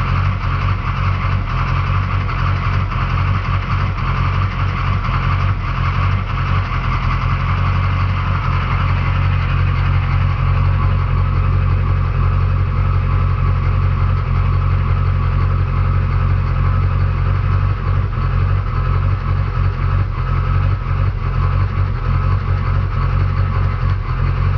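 Duramax diesel truck engine idling roughly, its steady low running broken by a fine, uneven flutter; some suggest a new fuel pressure regulator is needed.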